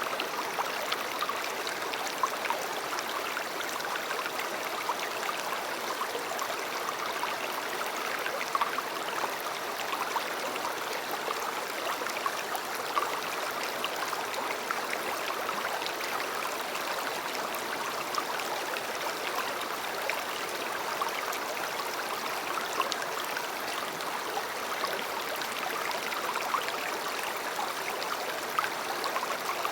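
River water flowing, a steady rushing with small sharp splashes now and then.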